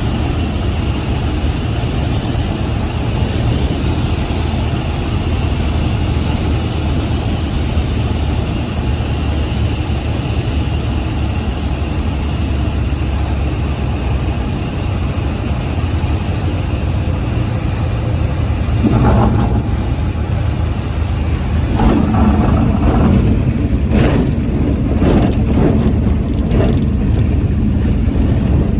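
Cessna 152's four-cylinder Lycoming engine and propeller droning steadily at low power, heard inside the cabin, through the final approach and the roll on the turf runway. About two-thirds of the way in, louder irregular rumbles and knocks join the drone.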